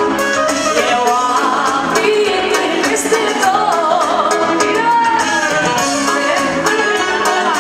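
Live band playing loud dance music: saxophone and keyboard over a steady beat, with a voice singing.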